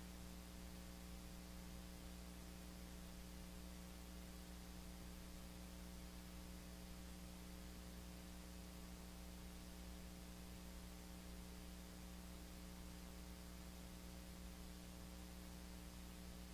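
Near silence: a steady low electrical mains hum with faint hiss.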